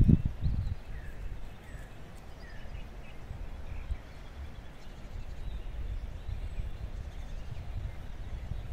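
Low, uneven rumble of wind on the microphone, with a few faint, short bird chirps during the first three seconds.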